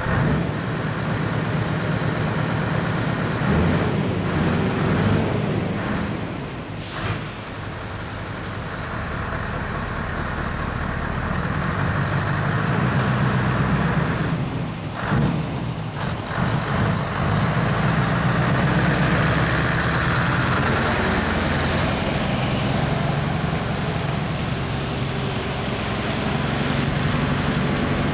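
Scania lorry's diesel engine running and pulling slowly away, with short air-brake hisses about seven seconds in and again about halfway through.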